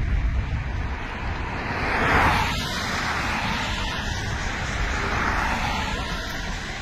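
Vehicles passing on a highway over a low wind rumble: a rushing tyre-and-engine noise swells and fades about two seconds in, then swells again around five seconds.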